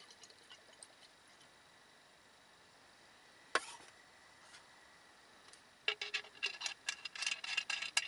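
Last faint drips of a pour from a metal flask into a steel cup, then a single sharp knock about three and a half seconds in as something is set down on the wooden camp table. A quick run of clicks and rattles from handling follows near the end.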